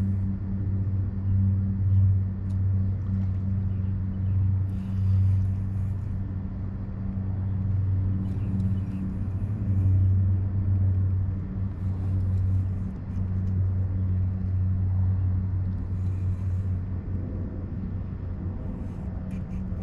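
Steady low hum and rumble from the kayak under way while trolling, swelling and easing. A few brief hissing sounds break in about five, eight and sixteen seconds in.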